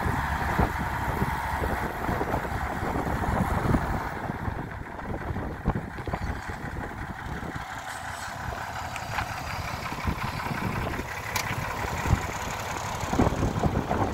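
1976 Unimog TP-65 utility truck's diesel engine running as the truck drives slowly, a low uneven rumble that dips somewhat in the middle and rises again near the end.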